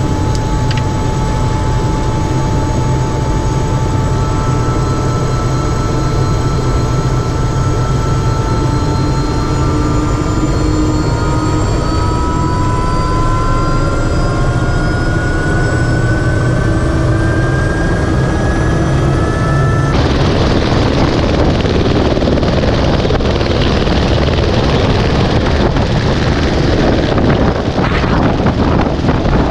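Airbus AS350 A-Star helicopter's turbine and rotor running, heard inside the cabin, with a whine that rises steadily in pitch as the rotor comes up to speed on the pad. About two-thirds in, the sound switches abruptly to the helicopter heard from the helipad as it lifts off: loud rotor noise with wind rushing over the microphone.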